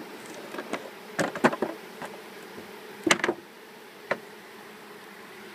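Carniolan honeybees humming steadily around an open hive, broken by a few sharp wooden knocks of hive parts being handled: a cluster about a second in, another around three seconds in, and a single one near four seconds.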